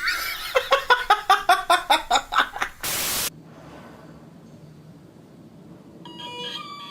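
A quick run of about a dozen short, pitched cries, about five a second, cut off by a half-second burst of static hiss; then a faint low hum with steady high tones coming in near the end.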